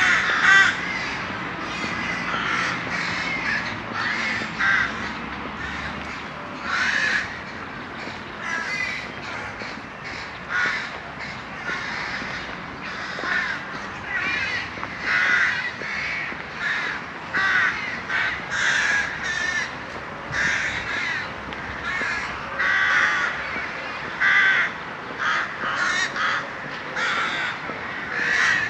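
A large flock of birds calling continuously, short calls overlapping one after another several times a second.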